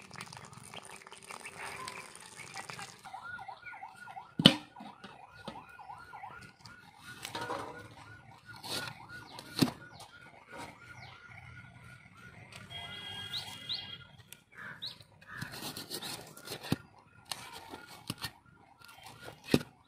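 Water pouring out of a metal pot of boiled rice through a cloth strainer onto the ground, then a fast run of repeated chirps lasting about ten seconds. A few sharp knocks cut through, the loudest about four and a half seconds in.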